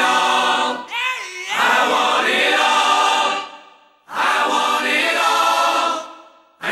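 Music with choir-like singing, in two loud phrases that each fade away.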